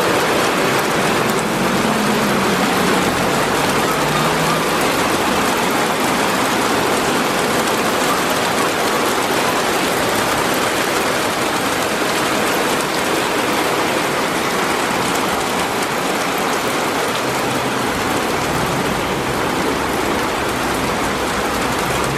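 Heavy rain pouring steadily onto a flooded street, with cars and a bus driving through the deep standing water and sending up splashes.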